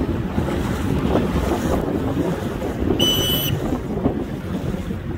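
Wind buffeting the microphone over the wash of water along a small boat's hull, with a short high beep about three seconds in.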